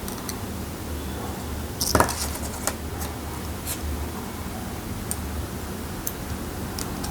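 Small hard parts and tools clicking and clinking against each other and the work surface while a smartwatch is being reassembled: a quick cluster of clicks about two seconds in, then single light clicks every second or so, over a steady low hum.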